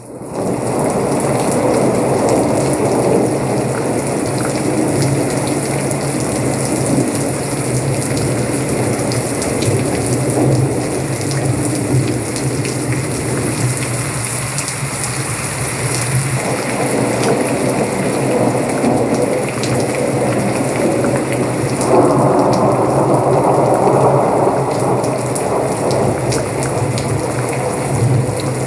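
Rain and thunderstorm sounds played through an Anker Soundcore Select Pro Bluetooth speaker, fading in at the start and then a steady, loud hiss of rain.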